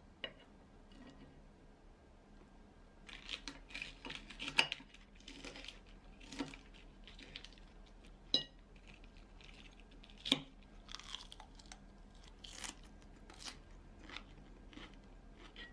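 Knife and fork cutting salad on a plate, with several sharp clinks of metal on the plate, and close-up chewing and crunching of salad leaves.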